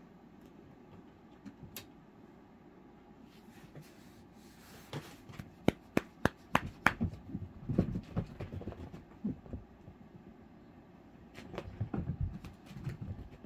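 Siberian kittens scampering and pouncing on carpet and a floor mat: soft thumps and a quick run of sharp taps about five to seven seconds in, and again near the end.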